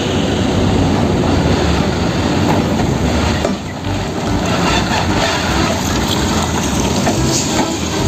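Several heavy Hino tanker trucks driving past on a road: their diesel engines running and tyre noise, a steady, loud traffic noise.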